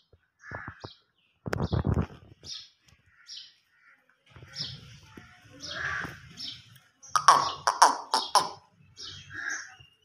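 Small birds chirping repeatedly in short high notes, with two loud bursts of crackling rustle, one about a second and a half in and a louder run of sharp clicks and crackles between seven and eight and a half seconds.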